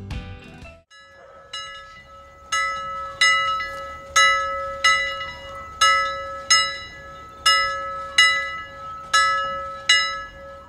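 Soft alarm bell striking over and over, about once every three-quarters of a second, each strike ringing on briefly: the timer's time-up signal. A plucked guitar melody fades out in the first second before the bell starts.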